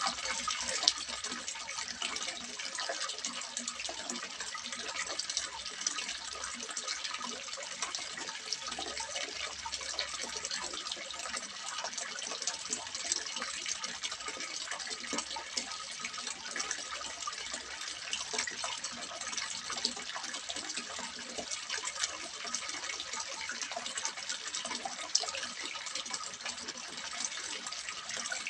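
Water splashing steadily into a small fish pond, a continuous bright patter and gush with many small droplet splashes.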